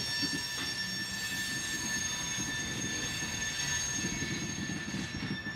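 Freight train of BNSF covered hopper cars rolling slowly past. The wheels give a steady high-pitched squeal over the low rumble and rattle of the cars on the rails.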